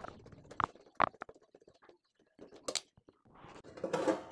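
A screwdriver clicking and scraping as it turns out the screws of an inverter welding machine's sheet-metal case: a few sharp clicks about a second in and again near three seconds. Background music fades in near the end.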